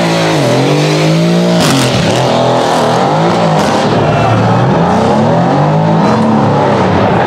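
Car engines revved hard for burnouts, the pitch rising and falling in repeated surges, with spinning tyres squealing.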